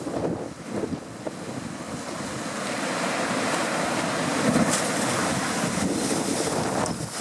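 Storm waves surging and breaking against a river sea wall, with wind buffeting the microphone. The surf swells from about a second in and is loudest a little past halfway.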